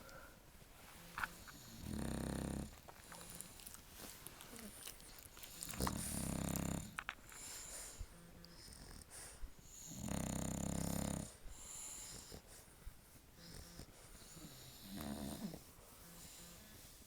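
A sleeping dog snoring: three loud snores about four seconds apart, each lasting about a second, with a fainter one near the end.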